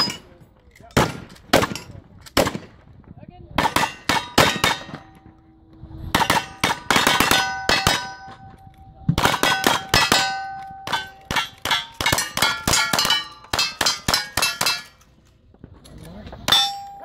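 Rapid gunfire at steel targets, each shot followed by the clang and ringing of a struck steel plate. The shots come in fast strings with a short pause about three seconds in and another near the end, then one last shot and clang.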